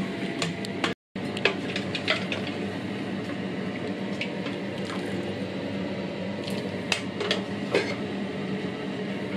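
Masala sizzling in a frying pan, with scattered crackles and light clinks of a spoon against the pan and steel pot as boiled lamb pieces are spooned in.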